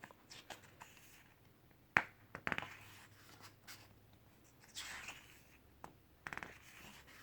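Faint sounds of hands handling a book and its packaging: scattered light taps and clicks, a sharper tap about two seconds in, a short scratchy rustle near five seconds, and a quick run of ticks near the end.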